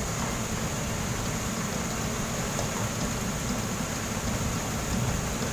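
Continuous ship unloader's vertical conveyor arm running as it draws soybean meal out of a cargo hold: a steady low machine rumble with an even hiss over it.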